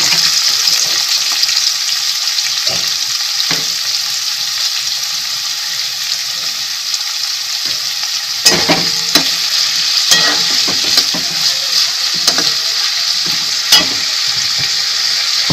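Sliced onions sizzling in hot oil in a kadai, a steady frying hiss just after they went in. About halfway through, a steel spatula starts stirring them, scraping and clinking against the pan.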